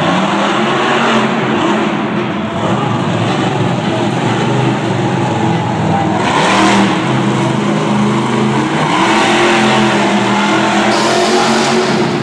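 California Kid monster truck's engine revving hard, its pitch climbing and falling again several times as the truck spins in the dirt.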